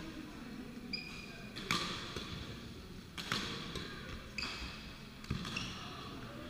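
Badminton doubles rally: rackets strike the shuttlecock in sharp cracks about once a second, with short high squeaks of court shoes on the wooden floor between the hits.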